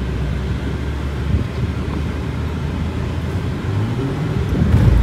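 Car engine and road noise heard from inside the cabin of a moving Hyundai car: a steady low drone, with the engine note rising and falling again near the end.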